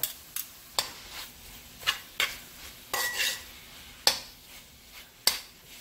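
Metal spoon scraping and clinking against the side of an aluminium caldero as crumbled chorizo is stirred and broken up, in irregular knocks about seven times, over a faint sizzle of the meat frying in oil.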